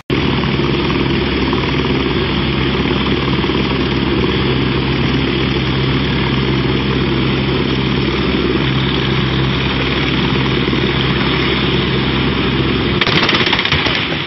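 Helicopter on the ground with its engine and rotor running: a steady drone with an even low thrum. Near the end the low thrum drops away and a louder rushing noise rises.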